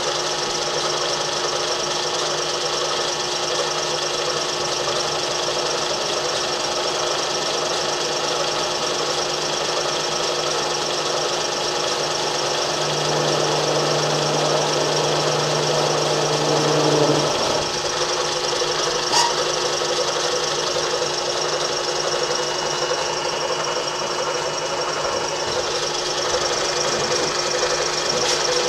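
Milling machine running with a 3/16-inch end mill plunging into a sheet-steel drawer to cut through a spot weld: a steady machine hum that grows louder for a few seconds around the middle and then eases. A single sharp click about two-thirds of the way through.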